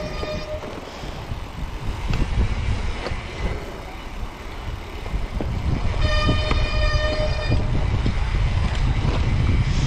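Mountain bike riding down a rough forest singletrack: wind buffeting the microphone, rumble and knocks from the tyres and bike over roots and dirt. A steady high squeal from the disc brakes fades out just after the start and comes back for about a second and a half around six seconds in.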